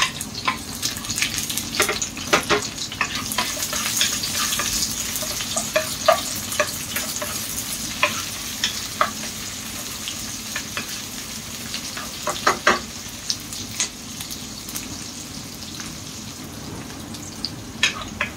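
Garlic and freshly added onion sautéing in hot oil in a pan, a steady sizzle that is strongest a few seconds in and then settles. A cooking utensil stirring them clicks and scrapes against the pan now and then.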